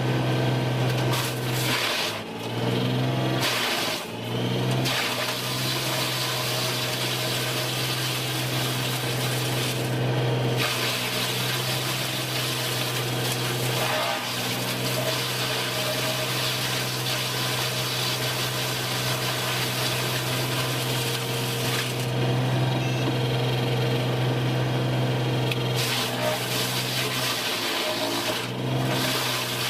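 Wood-processing machinery running steadily with a constant hum, dipping briefly about two and four seconds in and again near the end.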